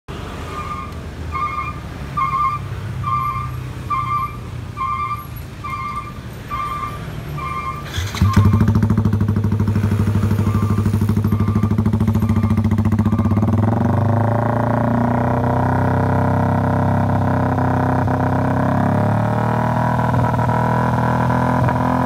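Yamaha R15 V3's single-cylinder engine running through a Balera BAMB aftermarket racing exhaust. For the first eight seconds a regular beep sounds about once every three quarters of a second over a low hum; then the exhaust note comes in suddenly and loud, and runs on as a steady drone that grows fuller about fourteen seconds in.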